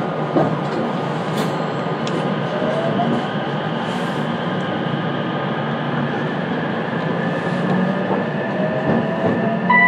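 Running sound inside a JR West 227 series electric train as it gathers speed: a steady rumble of wheels on rail, with a thin motor whine that rises in pitch over the second half, and scattered light clicks.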